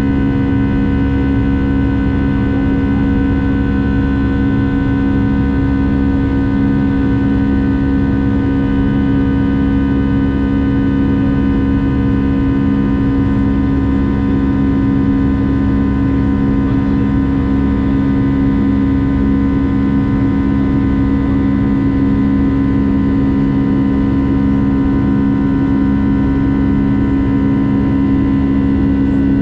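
Boeing 757-300 jet engines running steadily under power: a constant drone made of several held tones over a low rumble.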